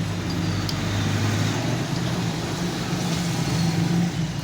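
Steady background road-traffic noise, a low drone, with a faint metallic click about two thirds of a second in.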